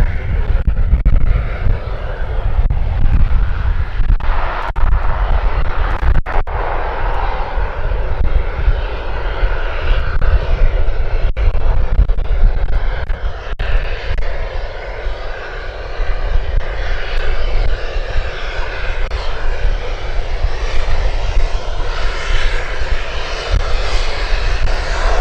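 Cessna 208B Grand Caravan's PT6A turboprop engine and propeller running at low power as the plane touches down, rolls out and taxis, over a heavy steady low rumble. The turbine and propeller sound grows a little stronger near the end.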